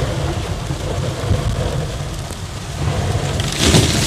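Hail and slush pelting a car's roof and windshield, heard inside the cabin as a dense, steady drumming over low road rumble. Near the end a wiper sweeps across the icy windshield with a louder swish.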